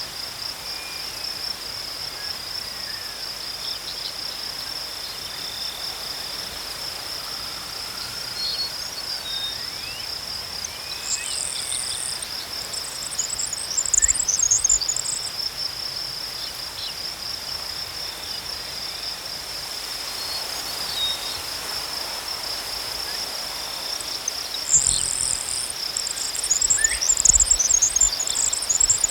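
Grass insects chirring steadily, a continuous high, fast-pulsing trill. A small bird twitters in high bursts about halfway through and again near the end, with a few brief low rumbles.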